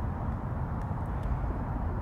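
Steady low outdoor background rumble, with a few faint high ticks about a second in.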